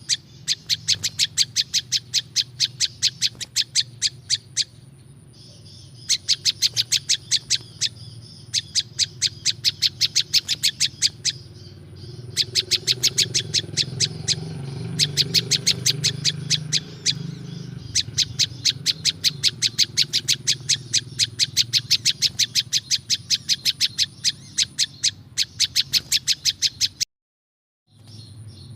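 Prenjak lumut (a small Indonesian prinia-type songbird) calling in a rapid series of sharp, clicking chirps, about seven a second, in runs of several seconds with brief pauses. This is a recorded call of the kind played as a lure for wild birds of the species. The sound cuts out completely for about a second and a half near the end.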